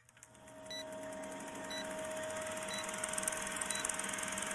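Film-countdown sound effect: a film projector's fast, even clatter over a steady hum, fading in over the first second, with a short high beep once a second that marks each number of the countdown.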